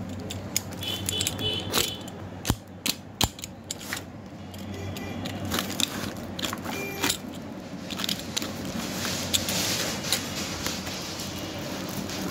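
A plastic-wrapped cardboard parcel being handled and turned over: a few sharp knocks and taps in the first few seconds, then rustling and scraping of the wrapping, loudest near the end.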